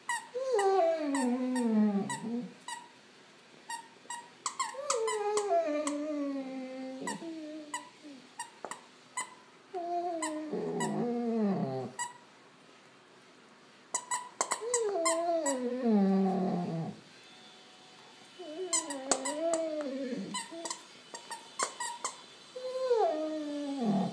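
A dog's rubber squeaky toy being chewed: about six long squeals, each sliding down in pitch over a second or two, as the dog bites down and the air wheezes out, with quick short squeaks and clicks between them.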